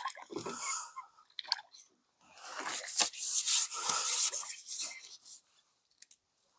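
Handling noise as a small bream is landed with a landing net: a few light knocks, then about three seconds of loud, rough rustling and scraping as the net is lifted from the water and swung in, stopping suddenly.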